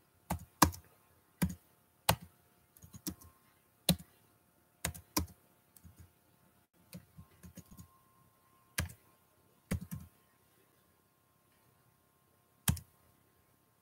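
Keys being typed slowly on a computer keyboard: single sharp taps and quick pairs at uneven spacing, with short pauses between bursts.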